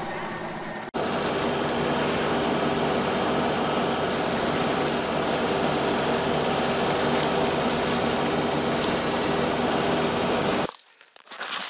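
Motor vehicle running steadily, heard from inside its cabin while it drives over snow-covered river ice. The sound starts suddenly about a second in and cuts off shortly before the end.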